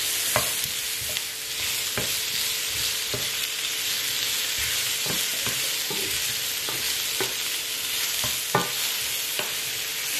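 Sliced button mushrooms sizzling in butter in an enamel-lined skillet, with a steady hiss, while a wooden spoon stirs them and knocks against the pan every second or so. The sharpest knock comes near the end.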